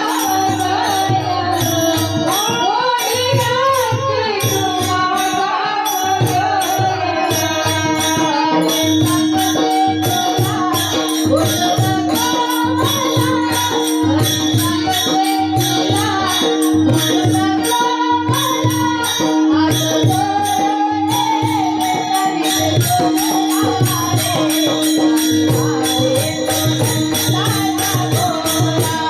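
A woman singing a devotional song, her melody gliding and ornamented, over a steady held drone. A drum and a high, evenly spaced percussion beat keep a regular rhythm throughout.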